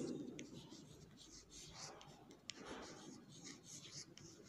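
Chalk writing on a blackboard: faint scratching of the chalk tip with a few sharp taps as a word is written out.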